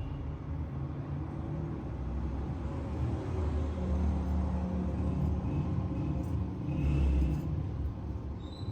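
Steady low background rumble, with a few faint, short cockatiel chirps in the second half.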